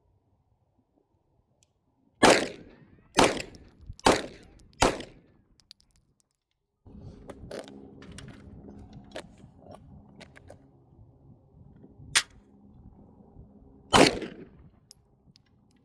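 Glock 17 Gen 4 9mm pistol firing: four shots about a second apart, then after a pause a smaller crack and one more loud shot near the end.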